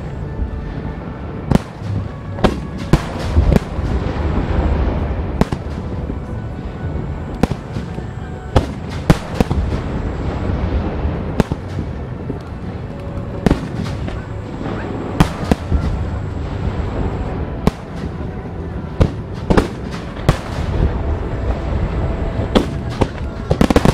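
Japanese starmine fireworks barrage: aerial shells bursting in quick succession, dozens of sharp bangs about one or two a second over a continuous low rumble of launches and crackle. Music plays underneath, as the show is fired to music.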